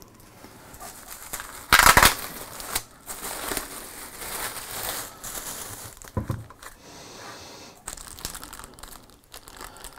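Clear plastic bag crinkling and rustling as it is pulled off a boxed oven by hand, loudest in a sharp rustle about two seconds in. A short knock comes about six seconds in.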